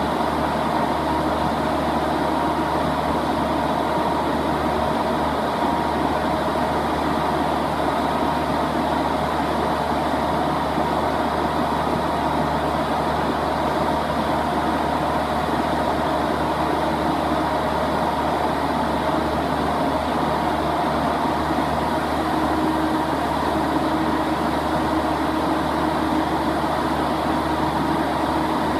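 Lovol 1006TANG six-cylinder natural gas engine running a generator set at a steady speed, with an even, unchanging hum.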